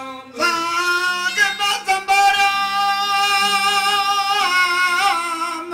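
Male folk singers holding one long, slightly wavering sung note, over the steady drone of plucked long-necked tamburo-style lutes.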